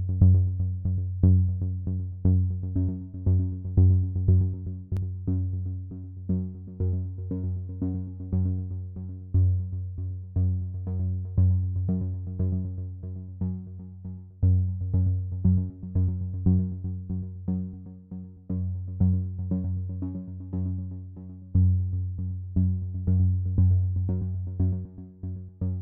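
Electronic background music with synthesizer and a steady beat.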